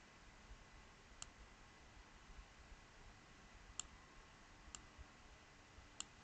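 Four faint computer mouse clicks, spread out over a few seconds, against near-silent room tone.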